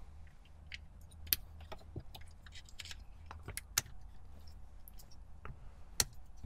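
Plastic wiring connectors and the wiper switch housing being handled: scattered light clicks and rattles, with three sharper clicks spread over the stretch, over a steady low hum.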